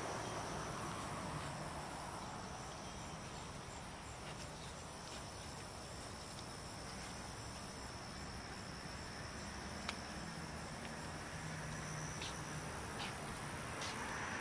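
Steady high insect chirring, with a faint low hum underneath.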